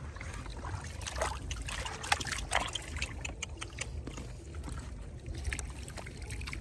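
Small, irregular water splashes and trickling in shallow water, clustered between about one and three seconds in, over a steady low rumble.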